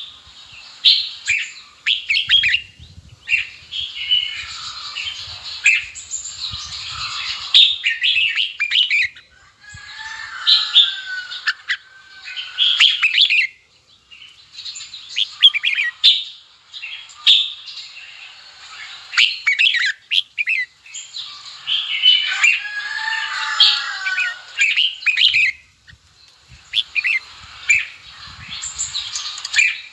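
Red-whiskered bulbuls singing and chirping in quick, bright phrases of a few seconds each, broken by short pauses.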